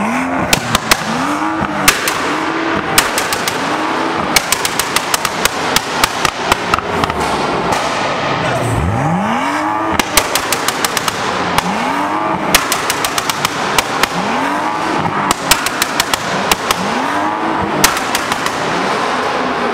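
BMW 1 Series hatchback revved in a series of short blips. Each is followed by a rapid string of sharp exhaust pops and bangs as the revs drop.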